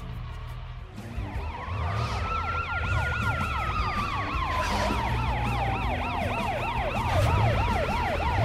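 Two cartoon emergency-vehicle sirens come in about a second in. One is a fast up-and-down yelp of about three cycles a second; under it runs a slow wail that rises, falls and rises again.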